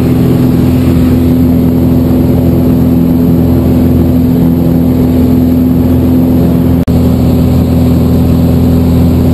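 Single-engine light airplane's piston engine and propeller, heard from inside the cabin, running steadily at climb power with a constant drone. It drops out for an instant about seven seconds in.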